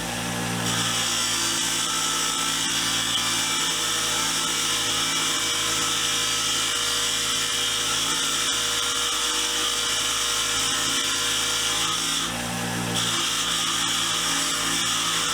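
Motor-driven fine brass wire wheel spinning with a steady hum while a steel flare nut wrench is held to it, scrubbing off red spray paint in a dense, steady hiss. The hiss starts just under a second in and breaks off briefly about twelve seconds in, leaving only the motor.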